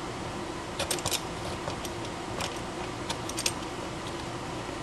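Scattered light clicks and taps from handling the clamp and its metal and plastic parts on the bench, irregular and a few in quick pairs, over a faint steady hum.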